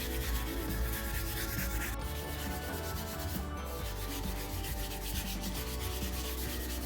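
Steel wool scrubbing the copper face of a circuit board, a steady fast scratchy rubbing of repeated short strokes, cleaning the copper to a shine.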